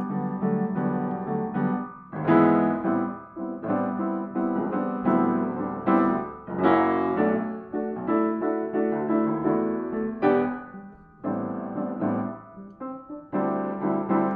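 Background music: a solo piano playing slow chords, struck afresh every second or two and left to ring.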